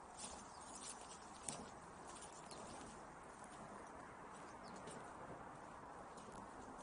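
Footsteps crunching on dry grass and dirt, a series of irregular soft crackles over a faint steady hiss, with one sharper crackle about one and a half seconds in.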